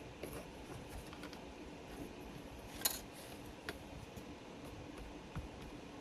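Quiet room hum with a few small clicks and taps of hobby supplies being handled on a workbench; the sharpest click comes about halfway through, with two fainter ones after it.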